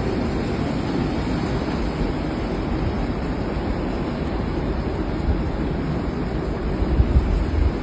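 Steady rushing of strong storm wind, with gusts buffeting the microphone in low thumps near the end.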